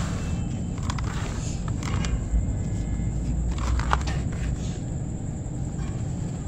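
Hands crumbling soaked ash chunks and swishing them through water in a basin: splashing and gritty crackles, sharpest a few times, over a steady low rumble.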